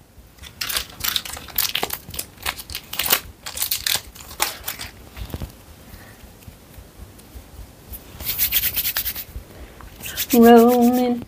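Hands rubbing and rolling air-dry clay between the palms and fingers: a run of short, scratchy rubbing strokes that comes in two spells.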